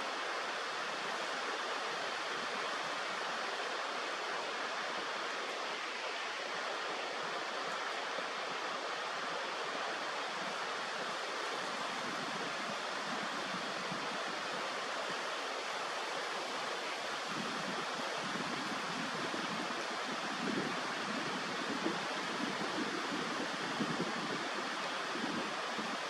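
Steady rushing noise of flowing water. From about two-thirds of the way in, low gusts of wind buffet the microphone.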